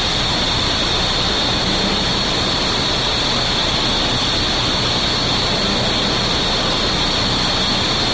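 Steady, even rushing noise of a jet aircraft in flight, with no change in pitch or level.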